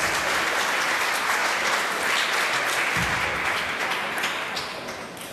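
Applause from spectators, dying away near the end.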